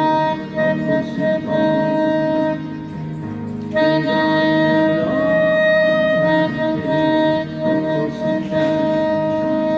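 Saxophone playing a melody of long held notes, with short breaks between phrases, over a lower accompaniment.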